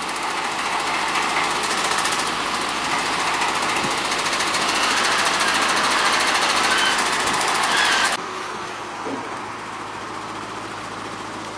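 Rollback tow truck's engine and winch gear running hard with a loud, fast rattle while the crashed minibus is hauled up the tilted bed. The rattle cuts off abruptly about eight seconds in, leaving a quieter steady street hum.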